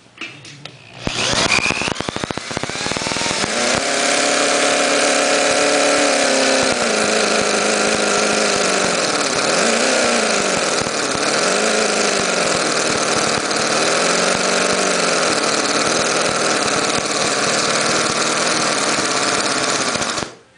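1/6 scale Duesenberg straight-eight model engine, four valves per cylinder, on its first run on propane: spun with an electric drill as a starter about a second in, it catches and runs on its own with a high, fast, steady note. Its speed wavers up and down a few times around the middle, and it stops abruptly near the end.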